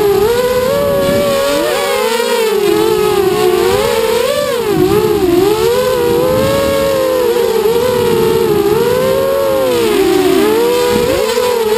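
Four brushless motors and propellers of an FPV quadcopter whining in flight. The pitch rises and falls constantly with the throttle, and the motors' tones sit slightly apart from one another.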